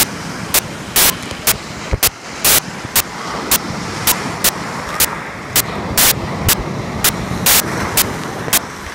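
Rough sea surf churning and rushing at the shoreline, a loud steady noisy rush, cut by sharp clicks that come evenly about twice a second.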